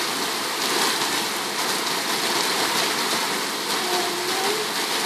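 Heavy rain pouring down steadily, heard through an open window.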